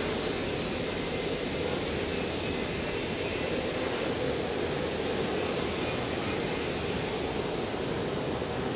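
Steady noise of a welding shop: ventilation and fume-extraction fans running, with arc welding going on in the booths.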